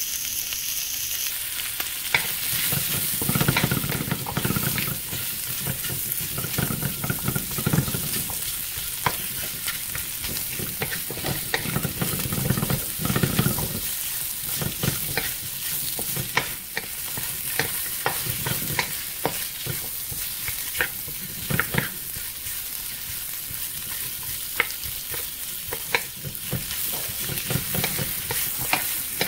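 Pork belly pieces sizzling in a hot pan as a wooden spatula stirs and scrapes them, with frequent light clicks of the spatula against the pan.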